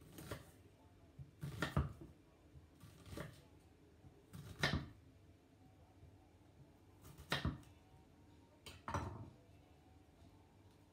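A kitchen knife knocking on a wooden cutting board as vegetables are cut, six separate knocks spaced unevenly about one to two and a half seconds apart.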